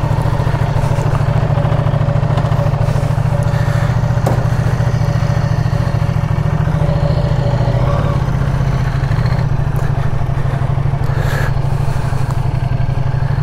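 Ducati Diavel 1260 S's 1262 cc Testastretta L-twin engine running steadily at low revs as the bike pulls away and rolls slowly, a low-pitched rumble throughout.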